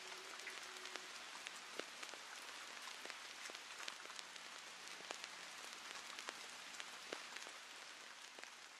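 Faint steady hiss with many scattered crackles and clicks. A held low musical note fades out about a second in.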